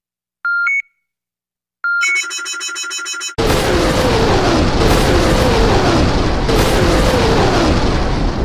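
Two short electronic beeps, then a rapid run of beeping, then a sudden loud rocket-launch sound effect: multiple-launch rocket system rockets firing one after another. The launch is a rushing blast with three falling whines.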